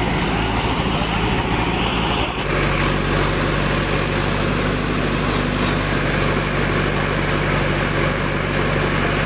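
Heavy diesel engine of a farm machine running steadily; the sound shifts about two seconds in.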